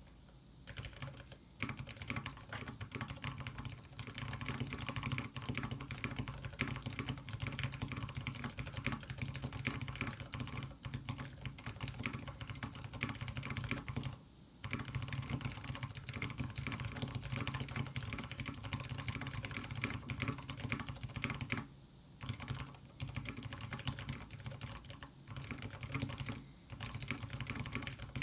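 Mechanical keyboard typing on a table: Ergo Clear tactile switches with 62 g SPRiT springs, with a Kailh Burnt Orange switch under the spacebar. Fast, continuous keystrokes with short pauses about 14 and 22 seconds in.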